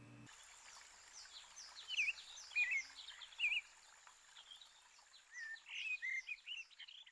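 Birds chirping: many short rising and falling calls, starting suddenly just after the start and coming thickest in two busy spells, with a faint steady high tone underneath.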